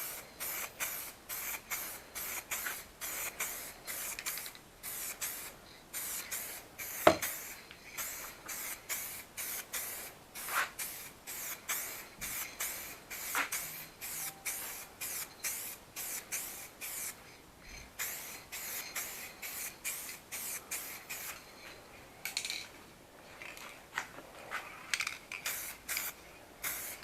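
Aerosol rattle can of red base coat spraying in short hissing bursts, about two a second, as a first light dust coat goes on. A single sharp knock comes about seven seconds in.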